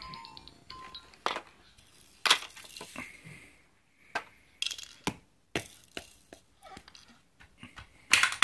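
Hard plastic toys knocking and clattering as a toddler handles and bangs them: about ten sharp, irregularly spaced knocks, with a louder clatter near the end.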